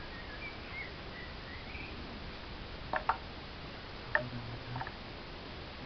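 A few sharp clicks from hands working a small vintage stationary engine's fittings, in a pair about halfway through and twice more soon after, with a bird chirping faintly in the first two seconds.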